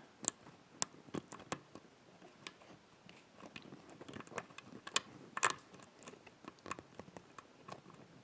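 Faint, irregular metallic clicks and ticks of a pick and tension wrench working the pins inside a Yardeni 6-pin dimple lock, with the sharpest click about five and a half seconds in.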